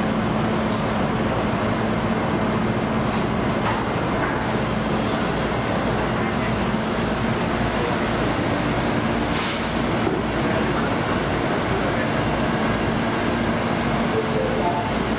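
Steady hum and rumble of a Taoyuan Airport MRT 1000-series commuter train standing at the station platform. A short tune of stepped tones starts near the end.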